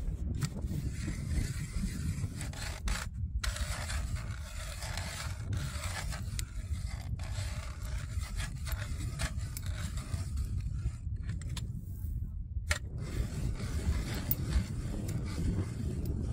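Hand-cranked ice auger boring through ice, its blades scraping and grinding steadily as the handle turns, with two short pauses in the cranking.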